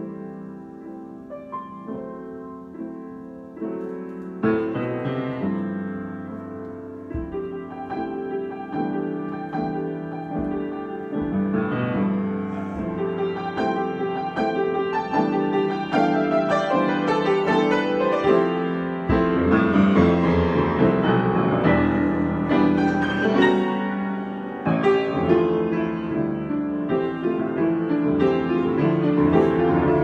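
Solo grand piano improvisation, starting soft and growing louder and fuller, with deep bass notes coming in about two-thirds of the way through.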